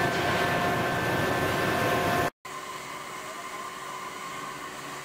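Steady factory machinery noise with a couple of high, steady whining tones; about two and a half seconds in it cuts off suddenly to a quieter steady machine hum.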